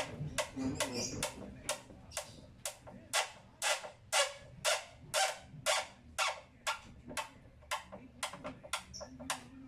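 Even, short strokes of a hand tool working on a plywood speaker box, about two a second.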